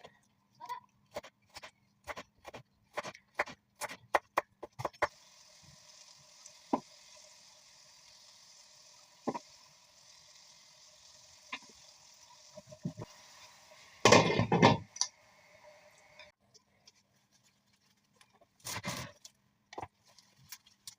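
Knife chopping on a cutting board in a string of sharp taps, then a steady hiss for about eleven seconds, broken by a loud clatter about fourteen seconds in, and a few more taps with another clatter near the end.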